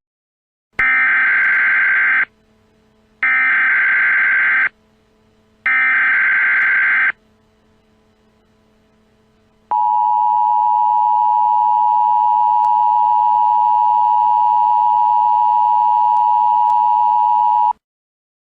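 Emergency Alert System SAME header: three short bursts of warbling data tones, about a second and a half each, followed by the EAS attention signal, a steady two-tone alarm held for about eight seconds that cuts off sharply. Together they mark the start of a new emergency alert message.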